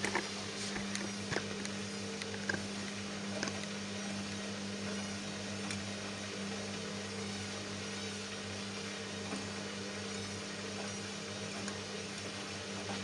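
Gorenje front-loading washing machine tumbling a plush dog toy in its drum during a quick wash: a steady motor hum, with a few light clicks in the first few seconds.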